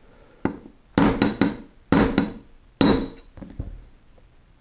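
A small hammer tapping a 1/8 inch steel punch to drive the slotted roll pin into a CZ P-07 pistol slide. There are sharp metallic taps about once a second, with lighter quick taps between them, each ringing briefly. The pin is going in easily.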